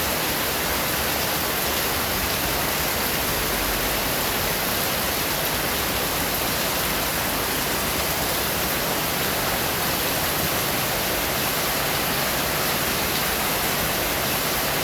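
Heavy rain falling in a steady, even hiss, with no thunderclaps.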